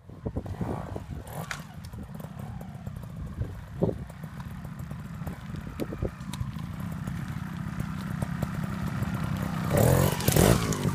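Trials motorcycle engine running at low revs with throttle blips, plus scattered clattering knocks as it works over logs. About ten seconds in it revs loudly as it climbs a log close by.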